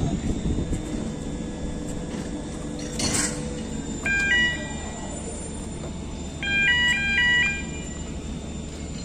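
Steady low machinery rumble, with an electronic beeping tune of a few stepped pitches sounding twice: briefly about four seconds in, then for about a second near seven seconds. The beeps are the loudest sound.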